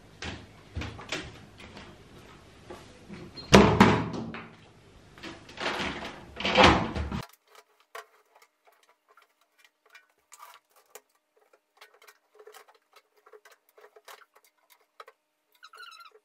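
Laundry being moved from a front-loading washing machine into a tumble dryer: two louder knocks of the machine doors being handled in the first half, then a run of soft clicks and rustling as the clothes are pulled out and pushed in.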